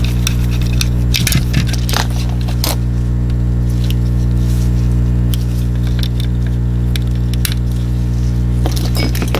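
Small sharp clicks and taps of a disassembled Logitech G Pro mouse's plastic shell and a small screwdriver being handled, clustered in the first few seconds and again near the end, over a steady low hum.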